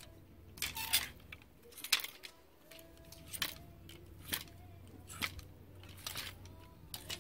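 Clear plastic clothes hangers clicking and scraping along a chrome clothes rack as garments are pushed aside one by one, with a sharp click about once a second.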